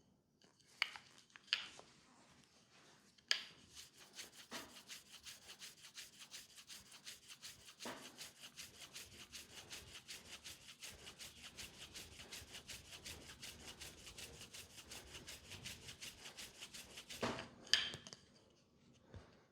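Hands rubbing briskly over a leg in a fast massage, in quick, even strokes of about five a second, after a few sharp taps at the start and before a louder pair of taps near the end.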